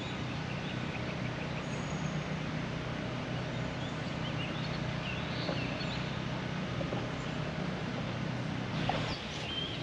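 An engine running steadily at a constant pitch, with a few faint bird chirps.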